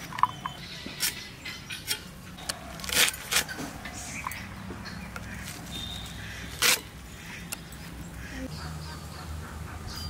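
Fresh amaranth stalks being cut on a boti, the fixed upright kitchen blade: a few crisp snapping cuts, the loudest about three seconds in and near seven seconds, over a low steady hum.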